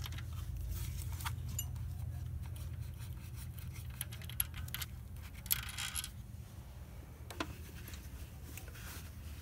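Small steel camshaft bearing cap bolts clicking and clinking as they are turned out by hand and handled, with one ringing metallic clink a little past halfway. A steady low hum runs underneath.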